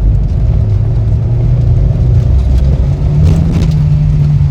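Volvo 940 Turbo's turbocharged four-cylinder engine pulling hard from low revs at full throttle, its pitch climbing slowly and rising more about three seconds in. Below about 4,000 rpm the engine runs badly under heavy throttle, a fault the owner has not yet traced.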